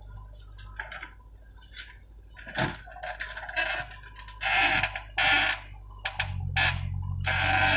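JCB 3DX backhoe loader digging soil: a steady diesel engine hum that grows stronger about six seconds in, with several loud, harsh bursts of noise from about two and a half seconds on as the backhoe arm and bucket work.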